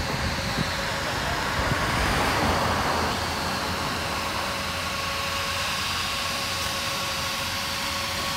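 Street traffic: a car driving slowly past over a steady low rumble, swelling about two to three seconds in.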